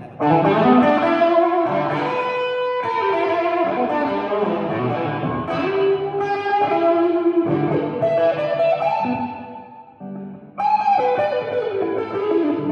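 Electric guitar played through a small Gibson GA-18 Explorer valve amp: chords and single notes ringing out, the playing dying away about nine seconds in and starting up again strongly a second or so later.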